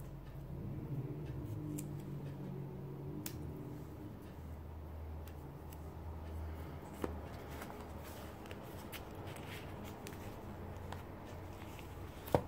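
Hands handling washi tape and paper journal pages: soft scattered rustles and small clicks over a low steady hum, with a sharper tap about seven seconds in and another near the end as pages are flipped.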